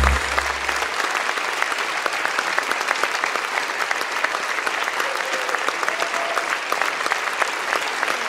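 Large audience applauding steadily, a dense patter of many hands clapping. Music fades out within the first second.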